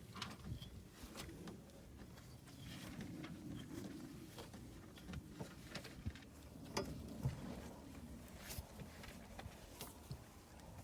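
Car jack being cranked down by hand, lowering the car onto its spare tire: faint scattered clicks and knocks, one louder about two-thirds of the way through.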